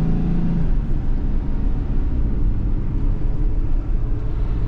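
Steady low road and engine rumble of a 2020 Ford Transit camper van driving, heard from inside the cabin, with a low hum fading out in the first second.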